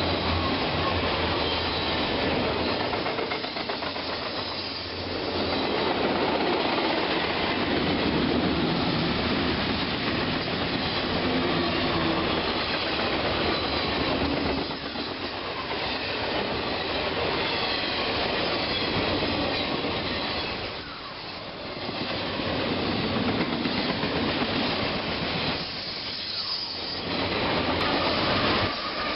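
A train rolling past, a steady loud noise of wheels on the rails that dips briefly about four times.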